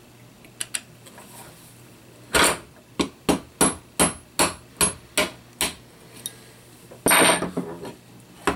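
Small mallet tapping a pin punch to drive a pin out of an airsoft M4 lower receiver, freeing the fake bolt catch. There are about nine sharp taps in a quick, fairly even series, then a louder clatter near the end.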